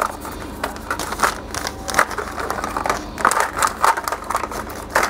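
Clear plastic packets of BGA reballing stencils rustling in irregular bursts as they are handled and shuffled.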